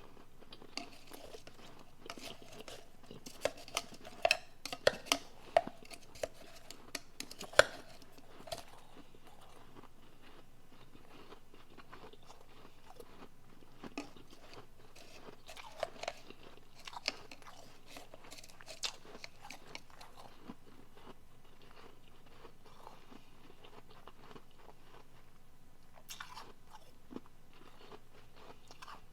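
Soft refrozen powdery blender ice being bitten and chewed, close to the microphone, in bursts of sharp crunches with quieter chewing between.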